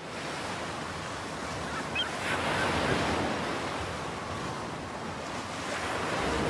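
Sea surf and wind: an even rushing of waves breaking, with a few short high calls about two seconds in.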